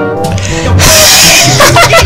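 Music playing, with a loud burst of hissing noise from a little under a second in to about halfway through, then a voice near the end.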